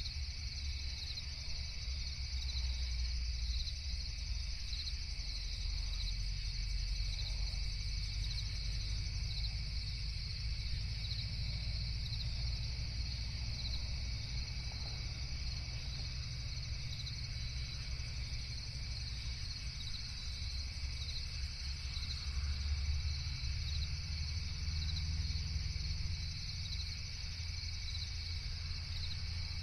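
Crickets chirping in a steady, evenly pulsing high chorus over a low, steady rumble.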